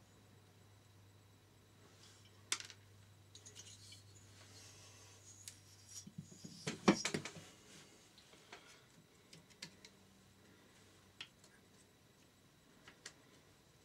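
Metal engine parts and tools handled on a workbench: scattered clicks and clinks, with a louder cluster of knocks and rattles about seven seconds in. A faint steady hum stops about six seconds in.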